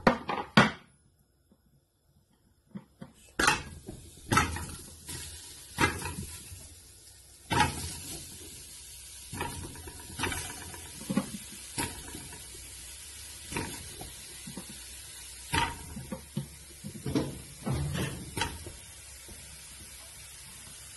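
Potatoes being put into a metal cooking pot: irregular knocks and clatters every second or two, over a steady low hiss.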